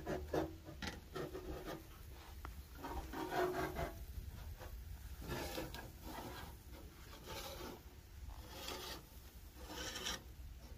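Flat metal seekh kebab skewers scraping and clinking against the rim of a steel charcoal grill as they are turned over and shifted by hand, in a series of short, irregular scrapes.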